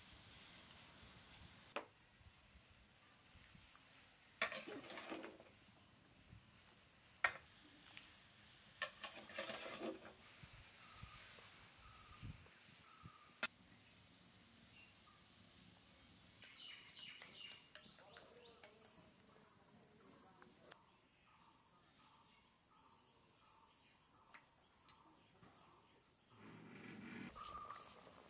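Faint, steady high-pitched chirping of insects, with a few sharp clicks and knocks in the first half and a run of soft, short repeated chirps around the middle.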